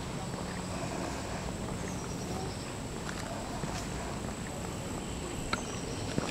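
Faint footsteps of a person walking on an asphalt trail over a steady background hum, with a couple of light ticks near the end.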